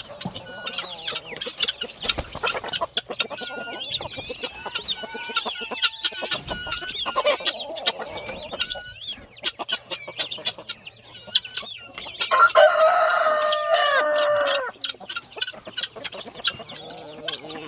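A flock of chickens clucking and chirping with many short calls, and a rooster crowing once about twelve seconds in, a crow of about two seconds that is the loudest sound.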